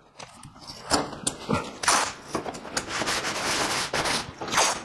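Masking tape being pulled off the roll in a few short rips, then a hand rubbing the taped strips down onto a cardboard template with a steady scuffing rub.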